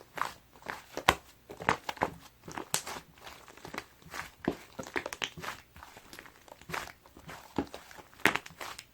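Thick, sticky slime being squished and pressed by hand, making irregular sharp pops and clicks a few times a second, with a louder pop about a second in and another near the end.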